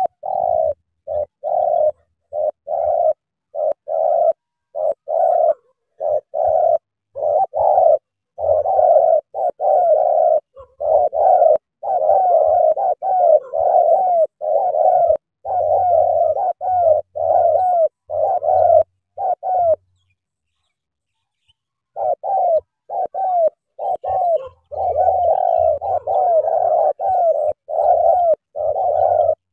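Spotted dove cooing: a long string of short, low coos in quick succession, breaking off for about two seconds two-thirds of the way through.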